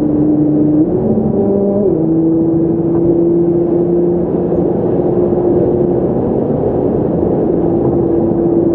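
Nissan GT-R R35's twin-turbo 3.8-litre V6 cruising through a TRR cat-back exhaust, heard inside the cabin: a steady drone with a held tone whose pitch lifts briefly about a second in, then settles and holds steady.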